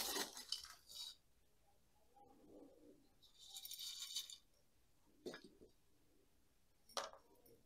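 Gritty bonsai soil poured from a small plastic cup into a shallow glazed pot: a faint trickling rattle at the start and again about four seconds in, followed by a couple of light taps.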